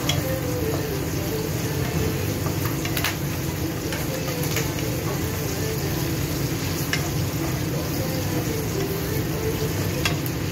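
Prawns frying in garlic butter in a pan with a steady sizzle. A utensil clicks against the pan a few times as they are stirred.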